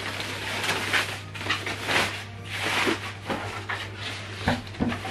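Plastic packaging wrap rustling and crinkling in bursts as a subwoofer is pulled out of it and lifted from its box, over a steady low hum.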